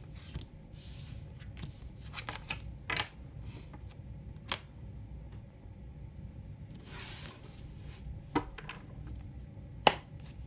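Cards being slid off and gathered up from a hard tabletop: soft swishes of card on surface about a second in and again around seven seconds, with a few light taps of cards being set down, the sharpest near the end.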